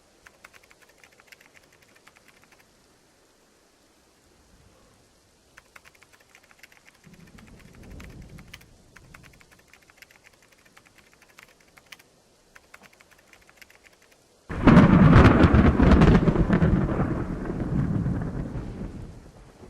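Typing on a computer keyboard in short runs of clicks, with a faint rumble of thunder partway through. Near the end a loud thunderclap breaks suddenly and rumbles away over several seconds.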